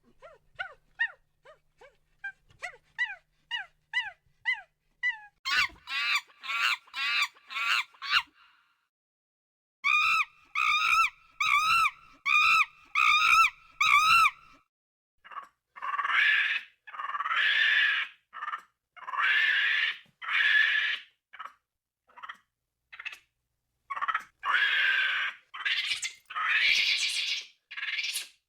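A primate calling: a run of short, falling, whistle-like calls that grow louder, then loud rhythmic calls about two a second, then longer harsh screams.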